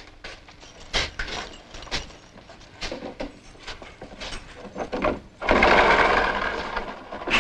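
Scattered clicks and knocks, then a barred jail-cell door being slid open for about two seconds, ending in a sharp clank.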